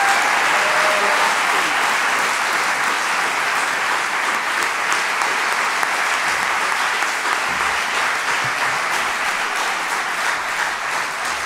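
Audience applauding steadily: a dense patter of many hands clapping that eases slightly toward the end.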